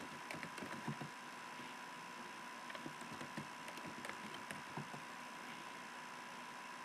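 Faint computer keyboard typing: a few short runs of key clicks, over a steady hiss and a faint steady high tone.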